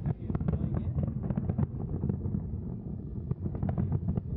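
Distant fireworks display: a continuous rumble of shell bursts with many quick sharp pops and cracks, mixed with wind buffeting the microphone.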